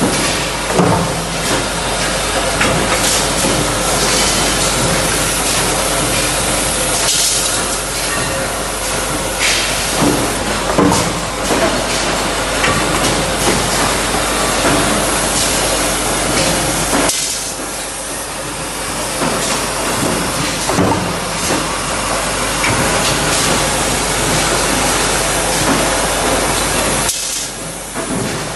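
Press-shop machinery noise: mechanical punch presses fed by robot arms, with sharp stamping knocks every few seconds over a steady hiss of compressed air and running machinery.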